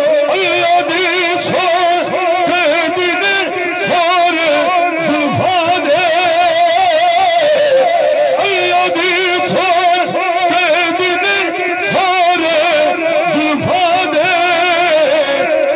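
A man singing a naat solo into a microphone, unaccompanied, in long held notes with a heavy wavering vibrato.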